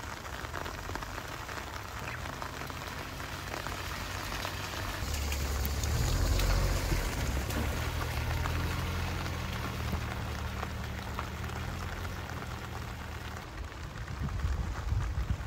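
Steady rain falling on a wet gravel lot, with the low hum of a small kei truck's engine coming in about five seconds in, loudest shortly after as it drives close, then dropping away near the end.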